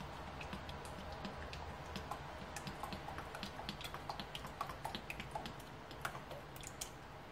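Cooking oil poured in a thin stream into a small saucepan, giving many faint, quick ticks and small plops as it lands in the pooling oil, thinning out near the end.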